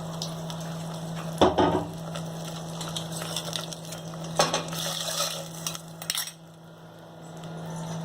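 Metal utensils clattering against a cooking pot, with stirring and light sizzling: sharp knocks about one and a half seconds in and again around four and a half to six seconds, over a steady low hum.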